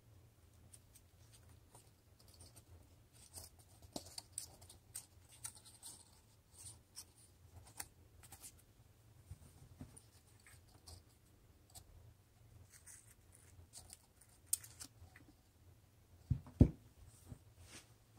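Pink construction paper being folded and creased into accordion pleats by hand, giving short crisp crackles and rustles. Two sharp knocks on the table come about three-quarters of the way in and are the loudest sounds. A faint steady low hum lies underneath.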